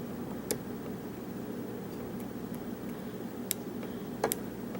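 A few sharp, small clicks of a short-hook lock pick working the pins of a Schlage pin-tumbler cylinder held in a false set under a tension wrench, one about half a second in and a quick pair near the end.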